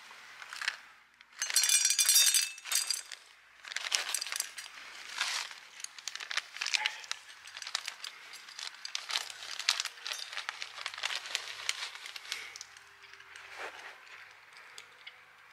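Irregular crinkling and crackling, with a louder burst of crinkling from about one and a half to three seconds in, then scattered crackles and clicks that fade towards the end.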